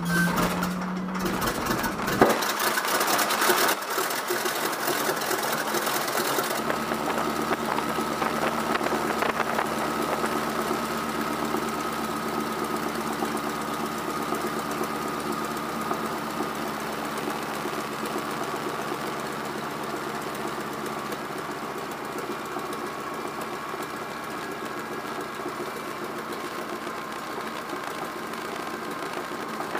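An engine running steadily, with a louder, rougher stretch and a sharp knock in the first six or so seconds before it settles into an even run.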